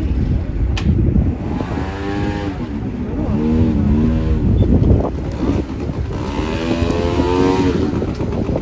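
Motor vehicle running on the road, a steady low engine and road rumble heard from on board, with indistinct voices twice over it.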